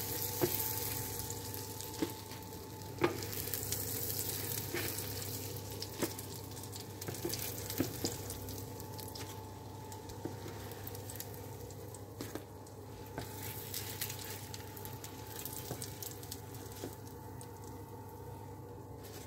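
Syrniki (curd fritters) frying in hot oil in a pan: a steady sizzle with scattered sharp pops and clicks.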